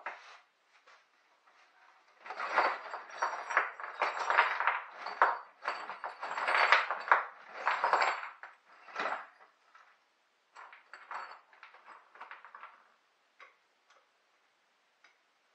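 Metal clinking and scraping as a steel lag bolt is worked in a bench vise: an irregular run of strokes for about seven seconds, then a few lighter clicks.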